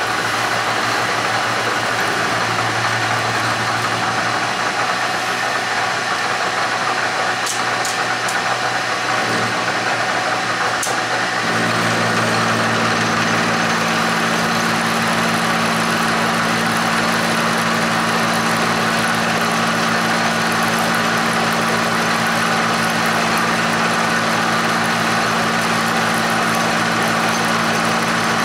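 1947 J-head Bridgeport milling machine running, its end mill cutting a flat on 3-inch round metal stock: a steady motor hum with cutting noise. About eleven seconds in, a new steady hum sets in and it gets a little louder.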